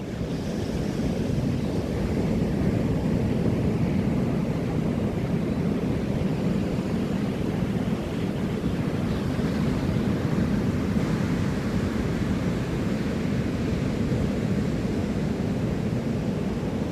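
Ocean surf breaking in a steady wash, mixed with wind rumbling on the microphone.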